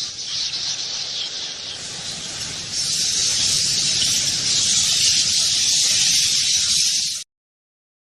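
Bat sound effect: a dense, high-pitched hissing rush, louder from about three seconds in, that cuts off suddenly near the end.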